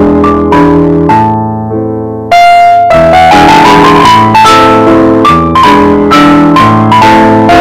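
Background piano music: a held chord fades away, then a fuller run of notes comes in at about two seconds and carries on.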